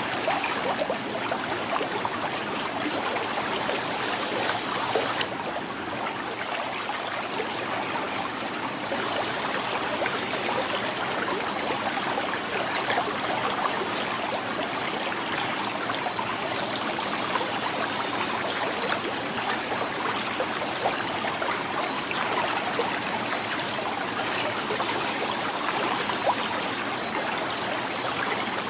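River water flowing steadily, gurgling and trickling. Short, faint high chirps come through a few times in the middle stretch.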